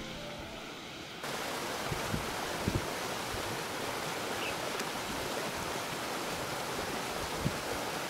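The tail of background music gives way, about a second in, to a steady, even rush of falling water from the Gamla waterfall, with a few brief low wind thumps on the microphone.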